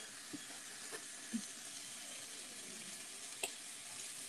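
Chicken, bacon and zucchini frying in a cast-iron pan: a steady sizzle, with a few sharp clicks of tongs against the pan.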